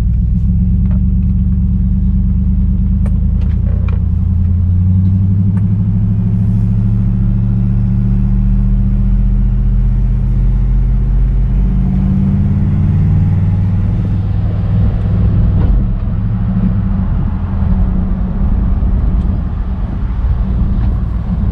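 Nissan truck's engine and freshly installed budget cat-back exhaust with new catalytic mid-pipes, heard from inside the cab while driving slowly: an extremely quiet, steady low drone. The pitch shifts around twelve seconds in, and more engine and road noise builds from about fourteen seconds as the truck picks up speed.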